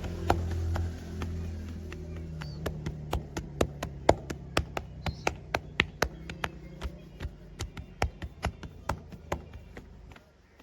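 Hands striking a body in quick tapping, chopping massage strokes: a run of sharp taps, about three a second. Music with low sustained notes plays underneath and drops away near the end.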